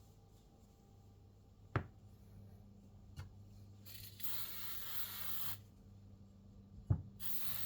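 Two long hisses like a spray or a burst of air, the first lasting about a second and a half, the second starting near the end. Three sharp knocks of hard objects being set down come between them. A steady low hum runs underneath.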